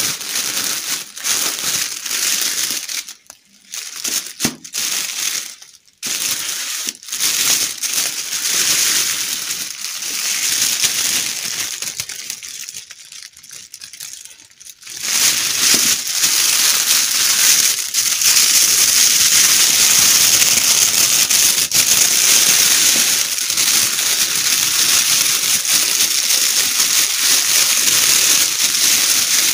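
Hands crinkling and crumpling plastic wrapping, a metallic gift-wrap sheet and a clear cellophane bag, in stop-start handfuls at first, then continuous from about halfway.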